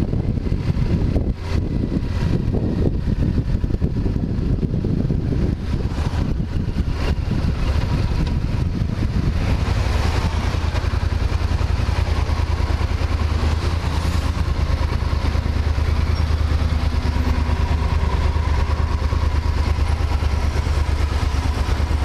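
Yamaha Super Ténéré 1200's parallel-twin engine running as the motorcycle rides through city traffic, with road and wind noise. From about halfway through, the bike comes to a stop in traffic and the engine settles into a steady idle.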